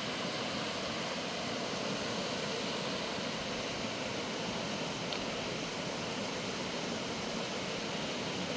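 Steady, even rushing noise with no distinct events, the kind made by running water, wind or road noise.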